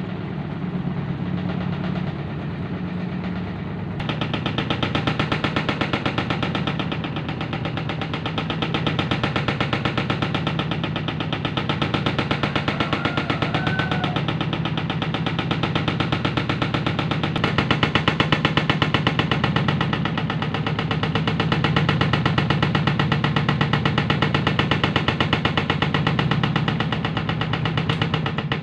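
Washing machine on a fast spin, with a steady hum and rapid, rhythmic knocking and rattling that grows louder about four seconds in. The unbalanced drum is shaking the machine so hard that it walks across the floor.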